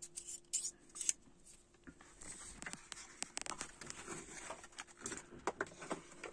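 Handling noise: scattered light clicks and rustling as a clear plastic organizer drawer is handled and the phone is moved about.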